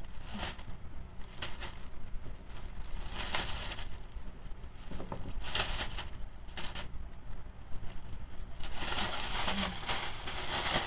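A thin clear plastic bag rustling and crinkling in a few brief spells as baby corn cobs are dropped into it. In the last two seconds it crinkles loudly and without a break as the filled bag is lifted and gathered up.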